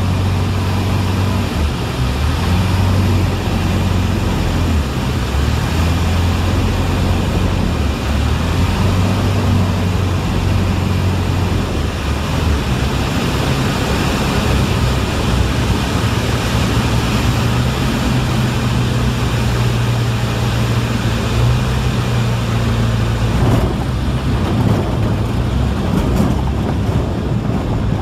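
Ultralight aeroplane's engine and propeller droning in the cockpit, with airflow noise, during approach and landing on a grass strip. The engine note changes about halfway through.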